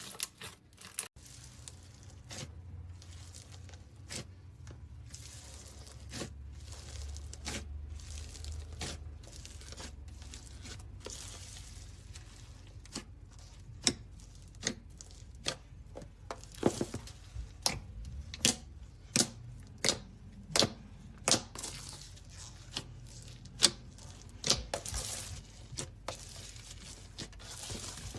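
Slime being squeezed, stretched and pulled apart by hand: a soft tearing, crinkling sound with irregular sharp pops and crackles, which become louder and more frequent about halfway through.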